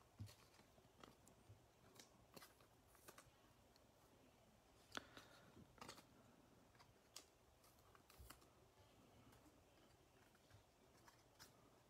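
Near silence with faint, scattered clicks and ticks of trading cards being handled, sorted and squared into stacks.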